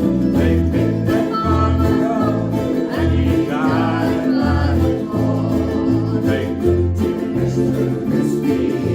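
Group of ukuleles strumming the tune together over a steady bass line, with no singing in this stretch.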